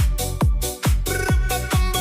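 Electronic dance music with a kick drum beating a little more than twice a second under sustained synth tones.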